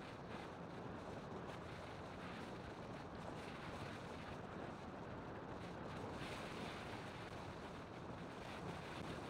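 Steady wind rush on the microphone mixed with the road and engine noise of a vehicle travelling along the road.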